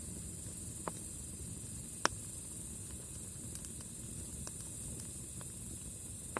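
Wood campfire burning, a steady low rush with a few sharp crackling pops, the loudest about two seconds in.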